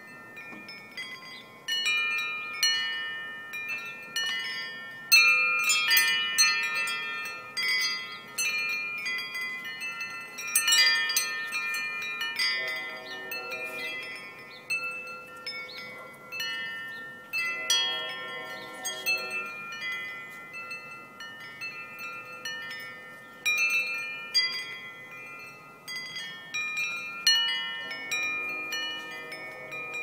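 Large wind chime with long metal tubes, its wooden striker knocking the tubes at irregular intervals, several strikes a second at times. Each strike rings on, so the tones overlap into a sustained chord that fades slowly between gusts.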